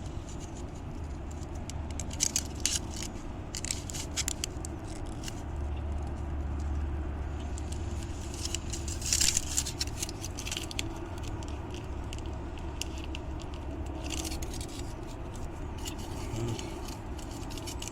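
Small parts being handled and fitted together: scattered clicks, scrapes and crinkles in little clusters, loudest about nine seconds in, over a low steady background rumble.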